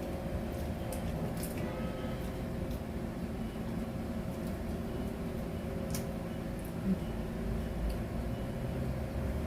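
A few light clicks of a spoon on a plate while eating, over a steady low hum.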